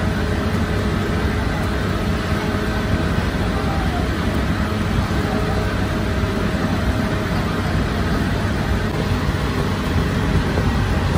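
Steady, loud machine din of bakery equipment, an even continuous noise that is heaviest at the low end and never lets up.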